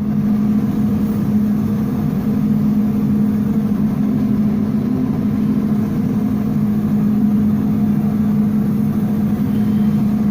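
Steady roar of commercial wok kitchen equipment, with a strong low hum that holds one pitch throughout.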